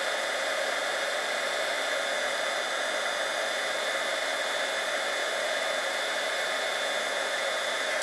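Handheld heat embossing tool blowing hot air steadily, a hair-dryer-like rush, as it melts embossing powder on a stamped paper sentiment. It switches off at the very end.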